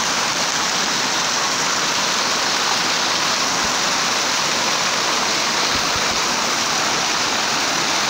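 Waterfall: water cascading down rock slabs in a steady, even rush.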